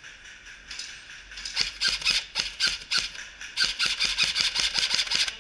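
Airsoft guns firing: rapid strings of sharp snapping shots, about six or seven a second, starting about a second in and coming in bursts until near the end.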